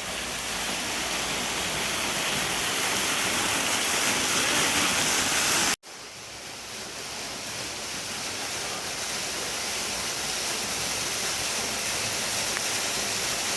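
Steady rushing of a 35-foot waterfall, growing louder over the first few seconds. It cuts out for an instant about six seconds in, then comes back and slowly builds again.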